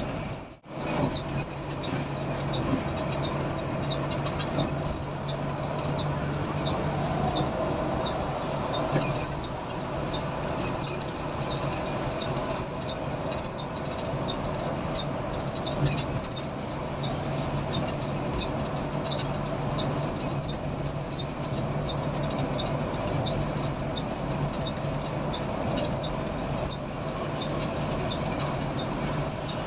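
Steady engine and road noise heard from inside a moving intercity coach, with a low hum and a light, even ticking a little under twice a second. The sound cuts out briefly just after the start.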